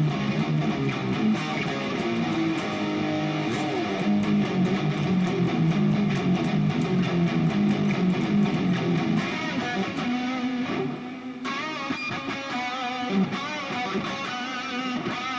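Harley Benton SC-500 electric guitar played through the Overloud TH3 amp simulator: low notes and chords at first, then higher single-note lead lines with vibrato from about ten seconds in.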